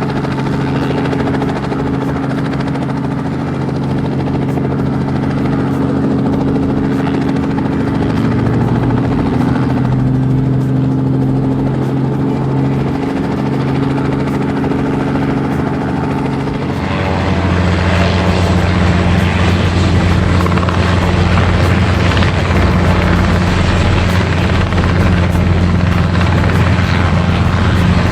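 Helicopter rotor and engine running steadily for takeoff, with a regular rotor chop; about 17 seconds in the sound changes and grows louder.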